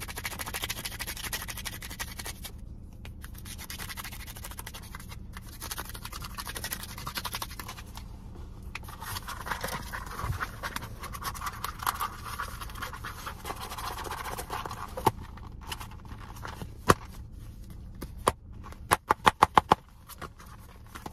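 ASMR scratching and rubbing of handheld blocks held close to the microphone, starting with a pink nail buffer block and going on to a grey block. A few single sharp taps near the end, then a quick run of about eight taps.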